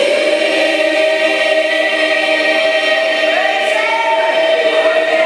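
A choir of mixed voices singing, holding long sustained notes with a shift in pitch partway through.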